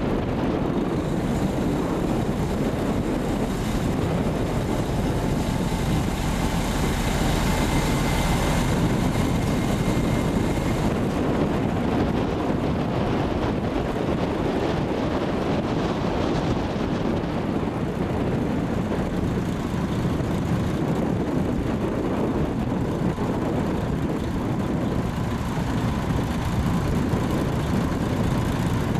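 Mercedes-Benz Actros 4143 dump truck's diesel engine running steadily while its hydraulics raise the tipper body to dump a load of soil.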